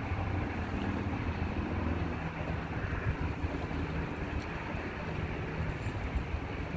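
Wind on the microphone over a steady low rumble of traffic, with a faint engine hum that comes and goes.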